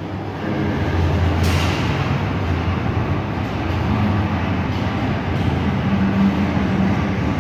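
A steady low mechanical rumble with a hum, like a motor or engine running, and one faint sharp sound about a second and a half in.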